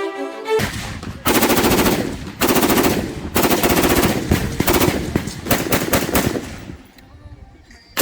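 Automatic gunfire in several long bursts of rapid shots.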